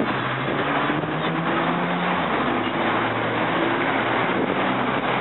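Caterpillar diesel engine of a Peterbilt 379 semi truck pulling away through the gears of its 18-speed transmission: the engine note climbs, drops at a gear change about two seconds in, then climbs again, over steady traffic and tyre noise.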